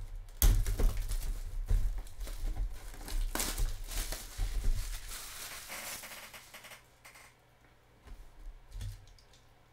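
Cardboard mini-helmet box being handled and turned over in the hands: crinkling, rustling and knocks, the sharpest knock about half a second in. The handling dies down to quiet in the last few seconds.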